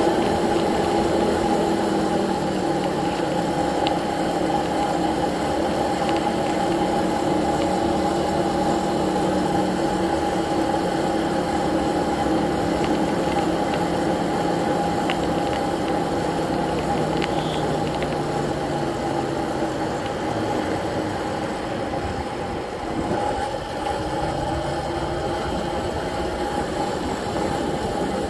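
A 750 W electric bike's motor whining steadily while riding, over a steady rush of wind and tyre noise. The whine wavers and dips briefly about three-quarters of the way through, as the speed changes.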